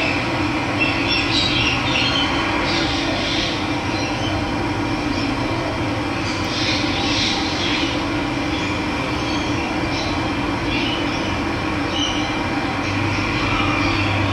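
Running water flowing steadily, with birds chirping now and then over it.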